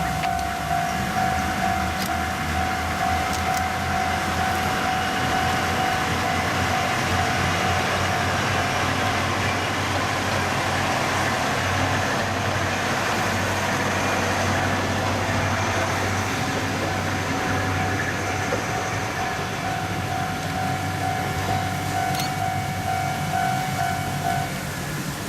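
Kominato Railway KiHa 200 diesel railcar running, its engine giving a steady low rumble over a wash of rolling noise. Over it a repeating ringing tone holds steady and stops near the end.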